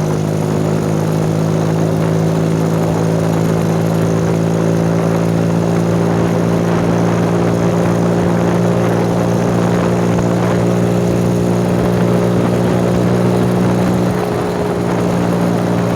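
Go-kart's 110cc Honda Grand single-cylinder four-stroke engine running at a steady, held speed, with a slight drop in level about fourteen seconds in.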